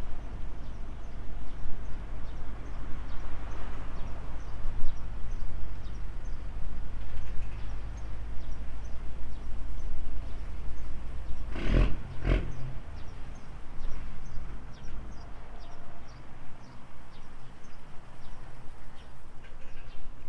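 Footsteps on concrete, about two a second, over a low rumble of wind on the microphone, with two sharp knocks close together about halfway through.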